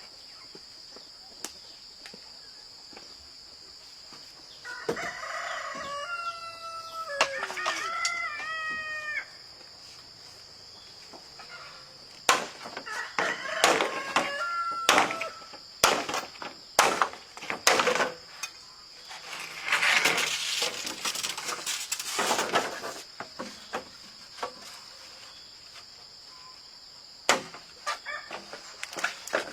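A rooster crows about five seconds in, over a steady high insect drone. Later come a run of sharp knocks and scuffles.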